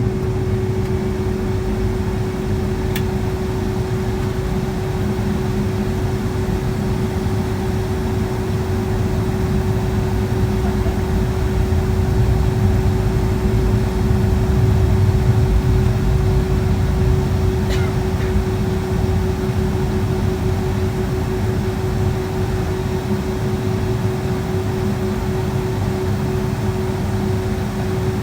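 Steady cabin noise inside a Boeing 757-200 with its engines running during the ground run before takeoff: a low rumble with a constant hum. Two faint clicks come a few seconds in and past the middle.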